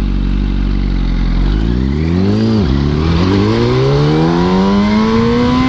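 2005 Yamaha R1's inline-four engine running steadily, then revving up as the bike accelerates away. The pitch drops briefly at one upshift about 2.5 seconds in, then climbs again.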